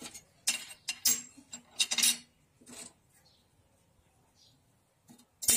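Small steel parts being set down in a welded sheet-steel desk organiser on a steel workbench: a run of light metal-on-metal clinks and taps over the first three seconds, then quiet. A louder sharp sound comes just before the end.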